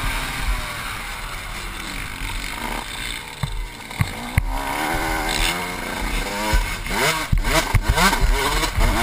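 Dirt bike engine heard from the rider's helmet, revving up and down as he accelerates and backs off through the track's turns and straights, with a few sharp knocks in the middle and near the end.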